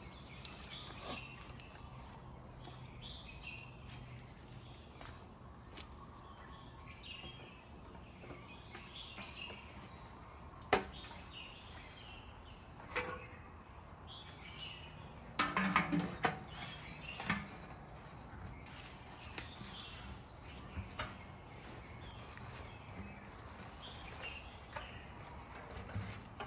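Insects trilling on one steady high note, with a few sharp knocks and, just past the middle, a short run of clunks and rustles from a hanging game feeder being handled.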